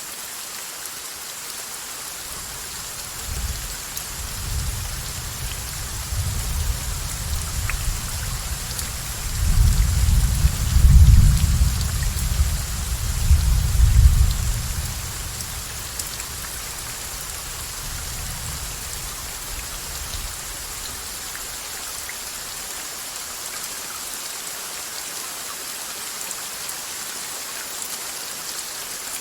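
Steady heavy rain with a long peal of thunder: a deep rumble that builds about three seconds in, is loudest a third of the way through, and fades out past the middle.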